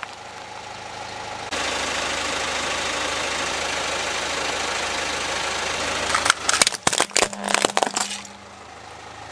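Car engine running steadily close to the ground, then a plastic toy robot cracking and snapping apart under the car's tyre in a quick run of sharp cracks lasting about two seconds, near the end.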